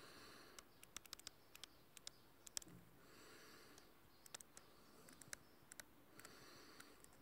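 Near silence but for faint breaths about every three seconds and scattered light clicks between them, close to a phone's microphone.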